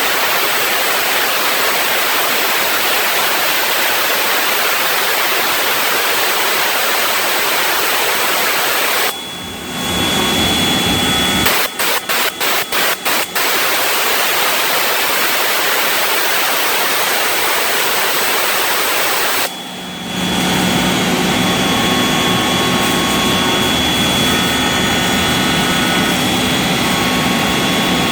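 CNC router spindle cutting compact HPL (high-pressure laminate) panel: a loud, steady rushing noise of the bit and chip removal. The level drops briefly twice and breaks up into a few quick gaps near the middle, and in the latter part a steady high whine and a low hum sit over the noise.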